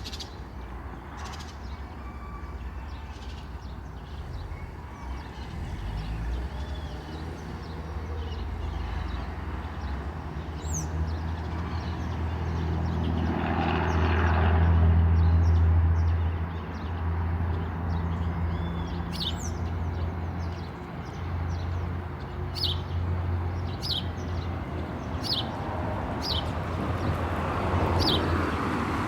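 Street ambience: a steady low hum of road traffic, with a vehicle passing and swelling loudest about halfway through. In the last third a bird gives a string of short, high, falling chirps, roughly one a second.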